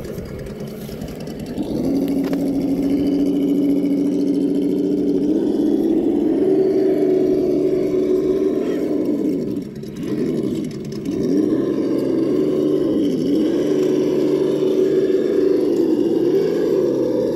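Traxxas TRX-4 High Trail RC crawler's electric motor and geared drivetrain whining as it crawls over rocks. The pitch rises and falls with the throttle, getting louder about two seconds in and easing off sharply twice, around ten and thirteen seconds in.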